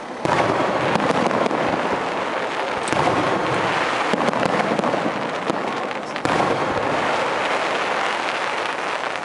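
Aerial fireworks bursting overhead with dense crackling. A sudden loud burst comes just after the start and another about six seconds in.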